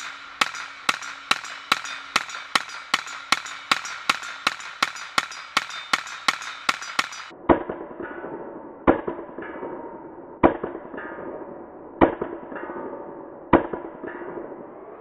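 IWI Tavor bullpup rifle with 9mm conversion kit firing semi-automatic shots in quick, even succession, about two and a half a second, each with a ringing tail. About seven and a half seconds in, the shots turn duller and lower and come only about every one and a half seconds, five more in all.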